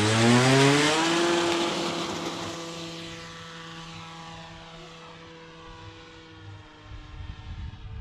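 Electric motor and propeller of a 3D-printed Eclipson Panthera RC plane spinning up to full throttle in a rising whine, then a steady whine that grows fainter over several seconds. A low rumble comes in near the end.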